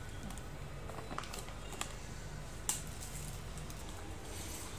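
A few faint, short crinkles and ticks from a foil pouch as ground coffee is poured from it into a plastic tub, over a low steady hum.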